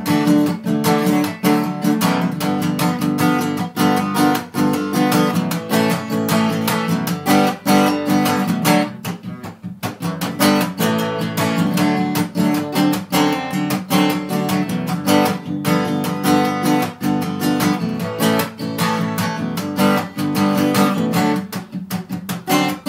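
Acoustic guitar strummed in a fast, driving rock-and-roll rhythm, chords played without singing; the playing eases briefly about ten seconds in.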